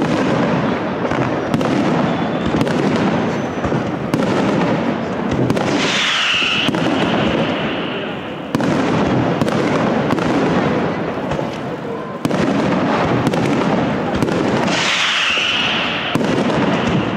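Fireworks display: a dense, continuous barrage of bangs and crackle from bursting shells. About six seconds in, and again near the end, a whistling shriek falls in pitch and then holds for about a second.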